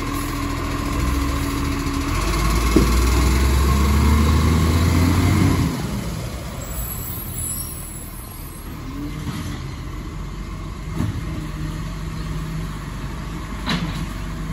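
Side-loading garbage truck's diesel engine revving as the truck pulls away, its note rising and then dropping off about six seconds in. After that the engine runs quieter, with a clunk near the end as its side arm lifts a bin.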